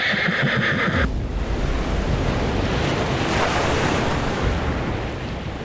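A high, rapidly fluttering tone that cuts off suddenly about a second in, then a steady rushing noise like wind or surf.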